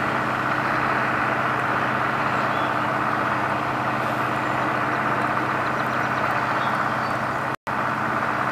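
Steady rushing background noise with a low, even hum, broken by a short dropout near the end.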